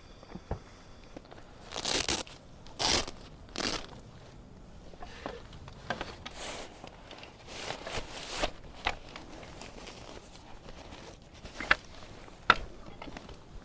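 Handling noise: three loud bursts of crinkling and rustling about two to four seconds in, softer rustles after them, and two sharp clicks near the end.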